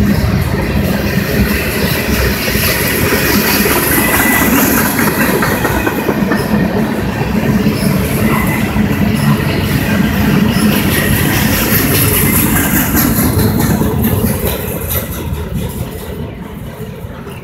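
Freight cars, covered hoppers and tank cars, rolling past on steel wheels with a steady rumble and clickety-clack, fading away near the end as the last car goes by.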